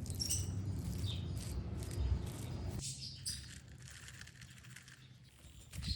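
Birds chirping, over a low rumbling noise that stops about three seconds in.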